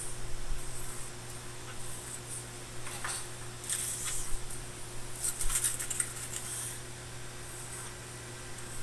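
Light taps and rustles of foam-board pieces being handled and set down on a plastic-covered cutting mat, clustered about three and five seconds in, over a steady low hum.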